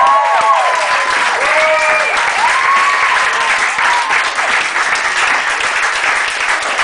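Small audience applauding, with whoops and cheering voices over the first few seconds, then steady clapping.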